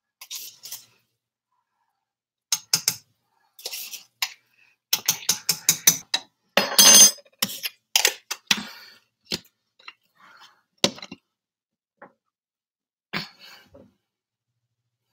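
A spoon and kitchen containers clinking and knocking in a run of short, uneven taps while bouillon base is measured into a pot, with one louder, longer rattle about seven seconds in.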